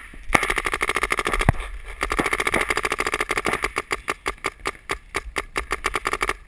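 Paintball marker firing a rapid stream of shots, about ten a second, with a brief pause about two seconds in.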